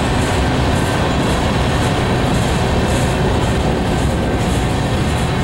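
Steel wheels of Norfolk Southern covered hopper cars rolling slowly over the rails in a freight train, a steady rumble and rail noise.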